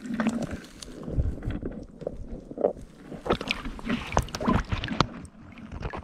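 Shallow stream water sloshing and splashing as a rubber-gloved hand reaches in and lifts out a stone, with scattered sharp clicks and knocks.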